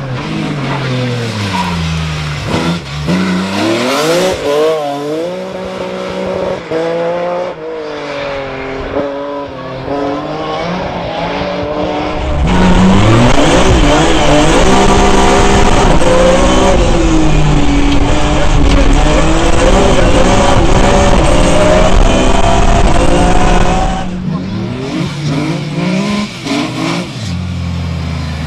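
BMW 1M Coupé rally car driven hard on a gravel stage, its engine revving up and dropping back again and again through gear changes. From about twelve seconds in until about twenty-four seconds it is heard from inside the cabin, louder and fuller, then from the roadside again.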